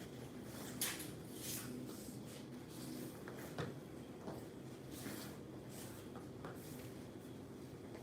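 Scattered short scuffs and swishes of people moving through a butterfly-knife form, steps and blade or sleeve swishes, a few seconds apart over a steady low room hum.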